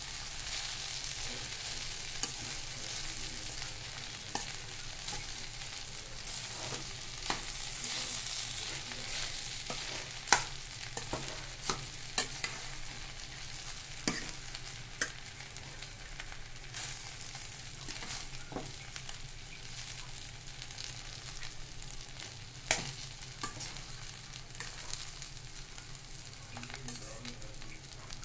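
Tempered rice frying in a metal kadai as a spatula stirs and tosses it: a steady sizzle with the scrape of grains, and irregular clinks of the spatula against the pan every second or two.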